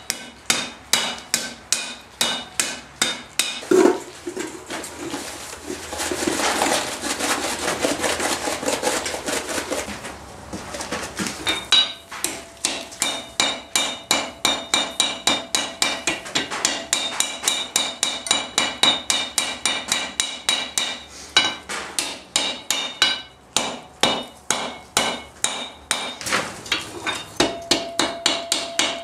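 Hand hammer striking red-hot iron bar stock on an anvil while forging a strap hinge. The blows are steady, about two to three a second, and each one leaves the anvil ringing.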